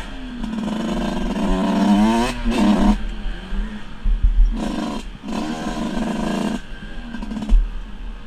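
Dirt bike engine heard from on the bike, ridden along a rough dirt track: the throttle is held open in stretches and shut off briefly several times. Wind and bumps rumble on the microphone, with a sharp knock about seven and a half seconds in.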